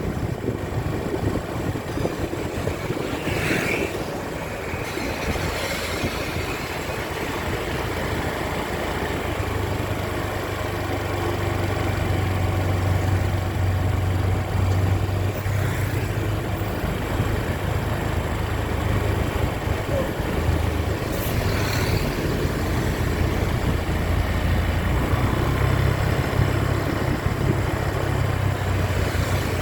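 Large bus diesel engine running steadily, its low hum growing louder about ten seconds in, with a few short hiss-like noises over it.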